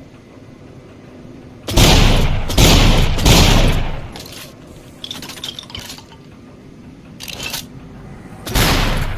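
Double-barrel shotgun blasts: three in quick succession, each with a booming tail. Lighter clicking and rattling follows, then one more blast near the end.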